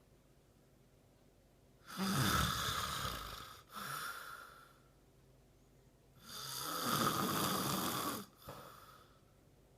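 A man snoring in his sleep: two long snores about four seconds apart, each followed by a shorter, fainter one.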